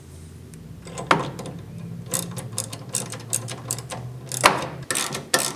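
Small hand ratchet clicking in quick runs as it tightens the mounting fastener of an LED bed light into a pickup's bed wall, with a sharper knock about a second in and another near the end.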